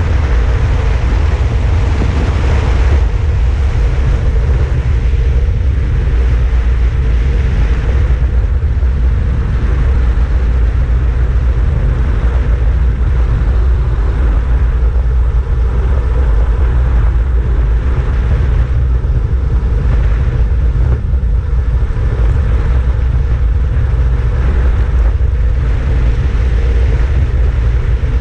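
Steady, loud wind rush on the microphone of a road bike coasting downhill at about 60 km/h, mostly a deep low rumble with a hiss above it.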